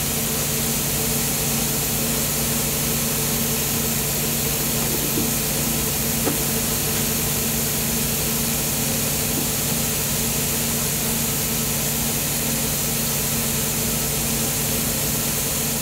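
Steady drone of machinery with a constant hiss, the polyurea spray rig's equipment running in the background, even throughout, with one faint knock about six seconds in.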